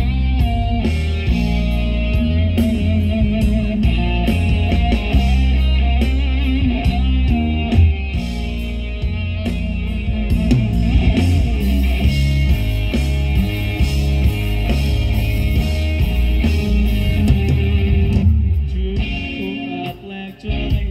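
Live rock band playing an amplified instrumental passage with electric guitar, bass guitar and drums. About eighteen seconds in the bass and drums drop out and the music turns quieter and sparser.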